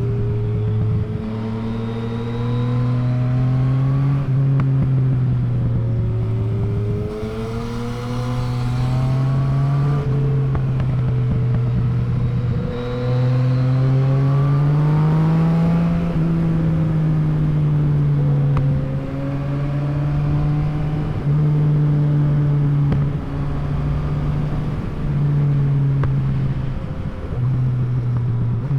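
Yamaha MT-09's inline three-cylinder engine under way, its pitch climbing under throttle and dropping sharply at several gear changes, then easing down and holding steadier with short dips in level.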